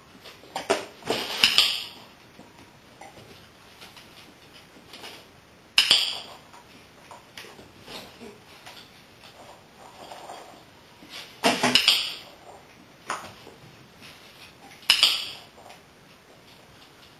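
A dog-training clicker clicking about five times, a few seconds apart, some clicks in quick pairs, with small knocks and taps in between.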